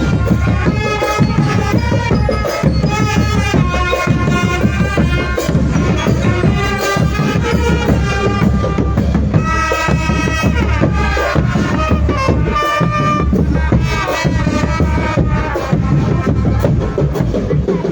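Marching drum band playing a tune, with drums beating under a melody line.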